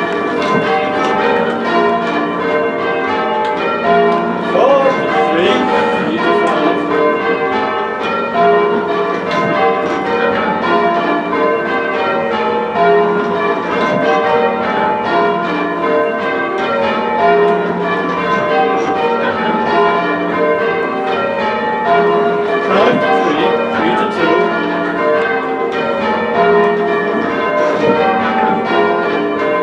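Six heavy church bells rung full circle in change ringing, strokes following one another in a continuous even rhythm.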